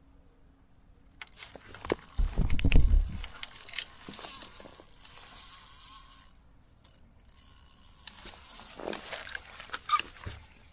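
Fixed-spool fishing reel ratcheting and whirring as line is pulled off against the drag: a barbel has taken the bait and is running. A loud low thump about two seconds in as the rod is grabbed, and sharp clicks near the end.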